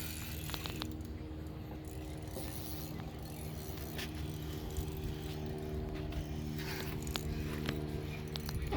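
Fishing reel's gears and drag clicking and whirring while a hooked fish pulls against the line, over a steady low hum.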